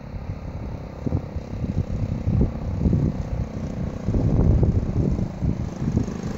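1970 Honda CT70 Trail 70 minibike with its small single-cylinder four-stroke engine running as it rides along, getting louder about two-thirds of the way through as it draws near.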